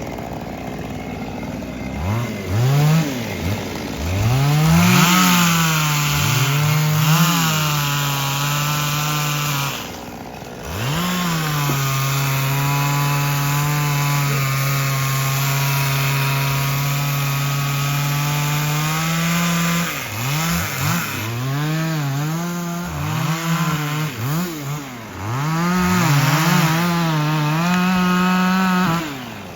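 Two-stroke chainsaw cutting wood: the engine is revved up and down in quick throttle swings, then held at a steady, slightly lower pitch for about eight seconds in the middle as the chain works through the cut, with more rapid revving near the end.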